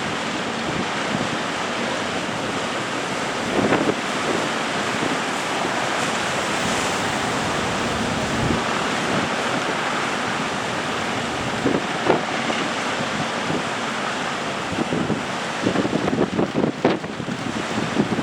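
Rough sea surf with strong wind blowing over the microphone, a steady rushing noise; it turns choppy and uneven near the end as the wind buffets the microphone.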